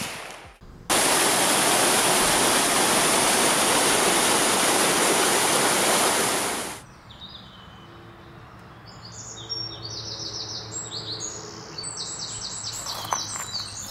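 Mountain stream rushing over rocks, a loud steady hiss of water that cuts in about a second in and stops abruptly after about six seconds. Then quieter woodland ambience with series of short, high bird calls.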